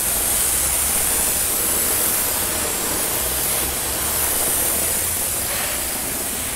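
Water spraying from a hose wand onto wooden clapboards in a steady hiss, with a low hum underneath. This is the final rinse washing the cleaning sludge off after a wet abrasive scrub.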